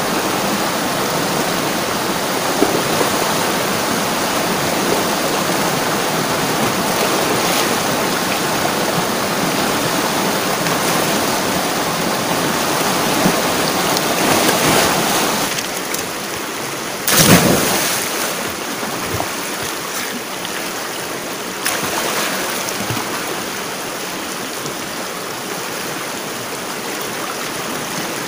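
Stream water rushing over rocks in small rapids, with a person splashing while swimming through it, including one loud splash a little past halfway. After that the rush of water is quieter.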